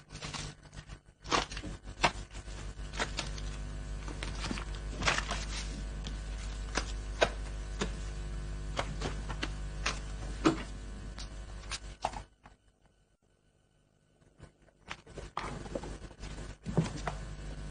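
Household handling noise: packets and objects rustled, knocked and set down, with scattered sharp clicks and thuds over a low steady hum. It drops to near silence for about three seconds late on, then the knocks resume.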